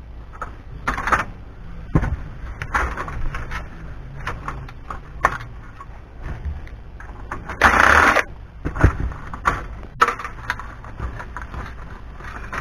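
Cordless impact driver hammering in two short bursts, one about a second in and one about two-thirds of the way through, as it drives screws in a DVD player's sheet-metal chassis. Between the bursts come sharp clicks and clatter as the chassis and circuit board are handled.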